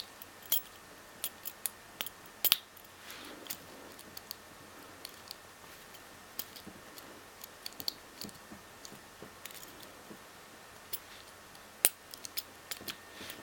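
Small irregular metallic clicks and scrapes of a homemade hacksaw-blade half-diamond lock pick working the pins of a Master Lock M15 Magnum padlock under a tension wrench, with a couple of sharper clicks standing out.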